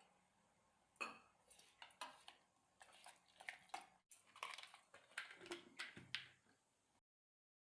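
Faint, scattered clinks and taps of a spoon and utensils against a mixer-grinder jar as water is added to urad dal for grinding. The sound cuts off suddenly about seven seconds in.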